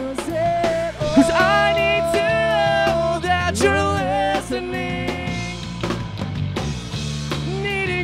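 Live rock band playing a song: drums, electric guitar and keyboard, with the singer's vocals, including one long held note from about one to three seconds in.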